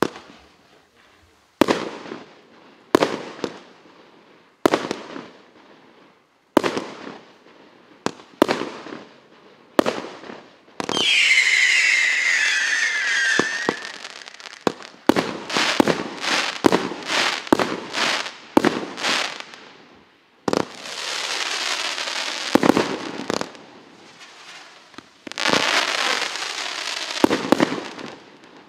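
A 52-shot consumer firework cake firing. Single shots a second or two apart come first, then a loud whistle falling in pitch for about three seconds from its whistling-snake effect. After that come rapid shots and two long stretches of dense crackling from its crackling stars and comets.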